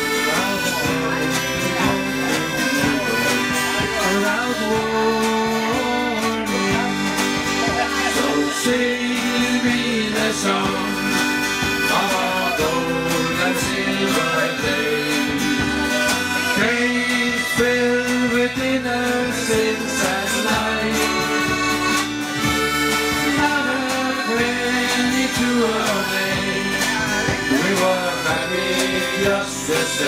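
Live folk band playing an instrumental break, an accordion carrying the melody over guitar, bass guitar and drums at a steady beat.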